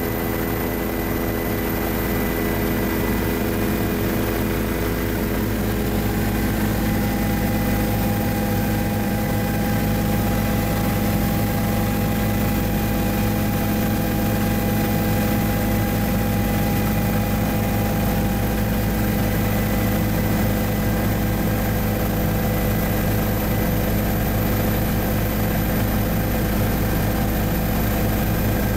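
Helicopter in steady flight, heard from inside the cabin: a constant engine and rotor drone with several held tones, which shift slightly about six seconds in.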